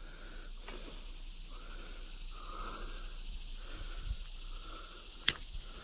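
Steady high-pitched chorus of insects, with a single sharp click about five seconds in.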